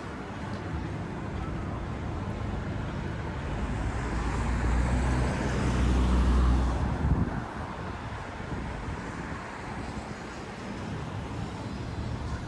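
Motor vehicle passing close by: its engine rumble builds, is loudest about six to seven seconds in, then drops away suddenly, over steady traffic hum.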